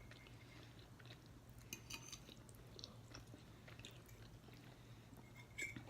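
Quiet room with faint chewing and a few soft clicks of eating, the loudest just before the end, over a steady low hum.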